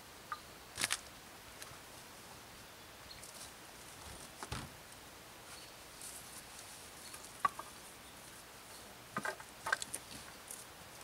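Wood being handled: short log rounds and wood pieces picked up, carried and set down, giving scattered knocks, clunks and rustles, with one heavier thud around the middle and a cluster of knocks near the end.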